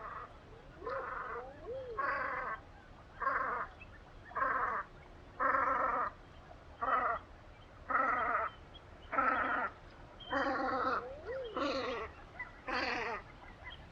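Velvet scoters calling: a run of about a dozen harsh, rasping calls, roughly one a second. A few soft rising-and-falling whistles sound among them, twice near the start and once near the end.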